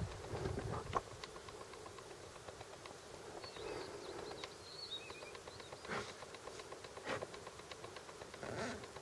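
Small waves lapping and slapping against the hull of an inflatable boat, with many light ticks and three stronger splashes in the second half. A few faint high chirps sound about four seconds in.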